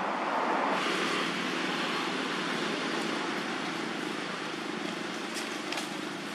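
Steady rushing outdoor background noise with no clear single source, and a couple of faint clicks near the end.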